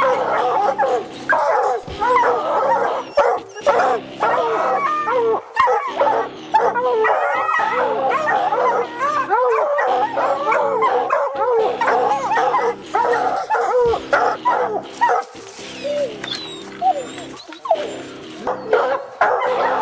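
Several hunting hounds barking treed at once, many overlapping short bawls and chops: the tree bark that tells the hunter the dogs have a cougar up a tree. The barking thins briefly a few seconds before the end, then picks up again.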